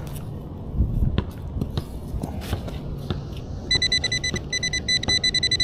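Scraping and soft knocks of digging in the ground, then, about two-thirds of the way in, a high-pitched, rapidly pulsing electronic beep from a Nokta Accupoint pinpointer, in several runs, signalling metal right at its tip.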